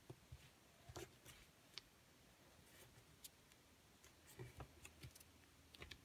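Near silence, broken by a few faint crinkles and soft ticks of origami paper being folded and creased by hand, scattered and sharp, with a small cluster near the end.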